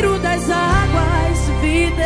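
Gospel worship band music: electric guitars and bass under a wavering lead melody, with the bass note changing about three quarters of a second in.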